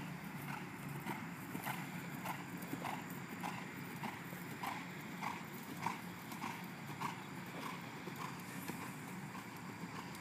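A horse cantering on grass, its strides beating out a steady rhythm of about one every 0.6 seconds that dies away near the end.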